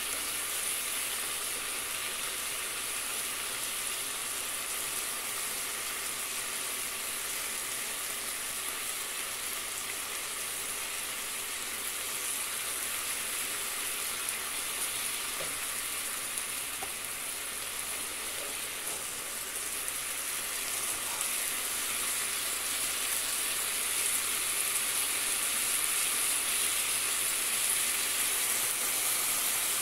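Boneless chicken breasts sizzling in oil and their juices in a frying pan: a steady hiss that grows a little louder over the last several seconds.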